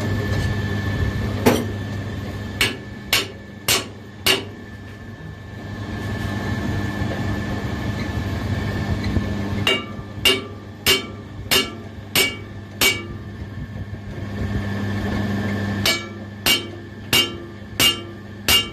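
A hammer striking a steel drive shaft to straighten it, in three runs of ringing blows about half a second apart. A steady low hum runs underneath.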